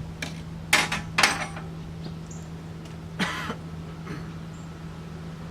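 A few short knocks and clatters of hard parts being handled, the loudest two close together about a second in and another about three seconds in, over a steady low hum.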